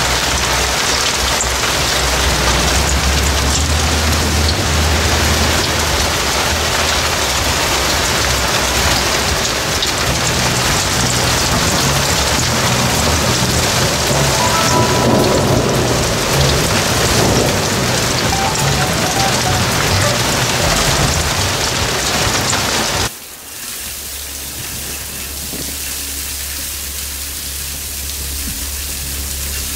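Very heavy rain pouring down, a dense steady hiss with a low rumble underneath. About 23 seconds in it cuts off abruptly to a quieter, lighter rain.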